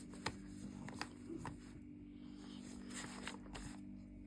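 Faint scattered ticks and scratches of a pen drawing, over a steady low hum.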